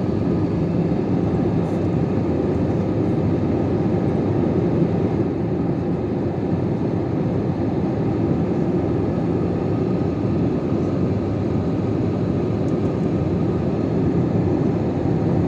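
Airliner cabin noise from the underwing turbofan engine and the airflow past the fuselage: a steady, even drone with a low hum.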